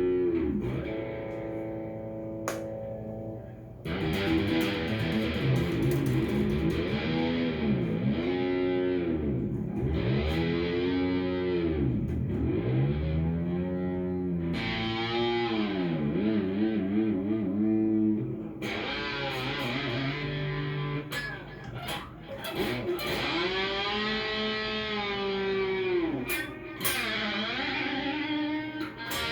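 Cort S series electric guitar played through a Fender amp: sustained chords and notes whose pitch is dipped down and brought back up over and over, as with a tremolo arm.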